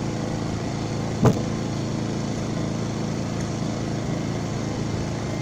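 An engine running at a steady idle, with one sharp knock about a second in.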